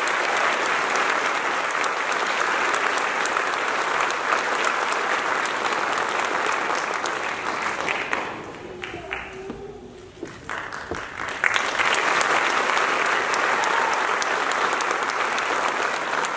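Audience applauding, with the clapping thinning out for a few seconds about halfway through before picking up again.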